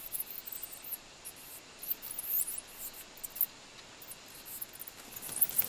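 White-lined sac-winged bats chirping: many short, very high squeaks, coming in a denser cluster near the end.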